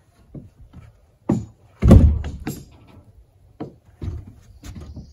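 Irregular wooden knocks and thumps as a block of wood is fitted against the stacked logs of a log wall. The loudest, heavy thump comes about two seconds in.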